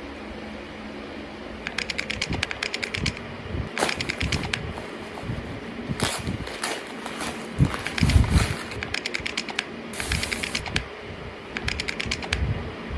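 Typing on a keyboard in quick runs of clicks, between short noisy bursts and a dull thump about eight seconds in.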